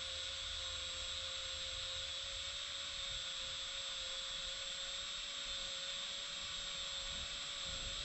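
Electric drill running slowly and steadily with a thin whine, twisting two wires clamped in a vise into a twisted pair, over a steady hiss.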